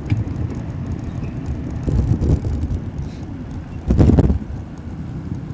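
Wind rumbling on the microphone of a moving bicycle, with city street traffic underneath. A louder rush comes about four seconds in.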